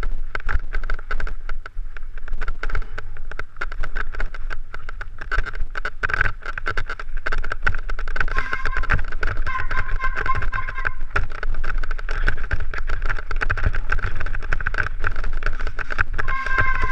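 Mountain bike rolling fast over a rough, stony trail, heard from a helmet-mounted camera: constant rattling and knocking as the wheels hit stones, over a low rumble of tyres and wind. A steady high-pitched buzz runs underneath and grows stronger about eight seconds in and again near the end.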